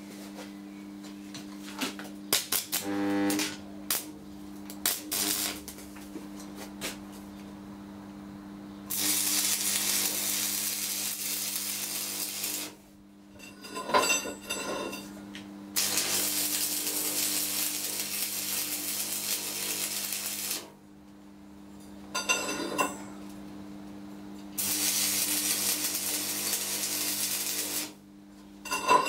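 Arc welding a steel pipe onto a thick steel plate, the arc crackling and hissing in three runs of about three to five seconds each. Clinks of metal being set in place come before the first run, and a steady hum sounds throughout.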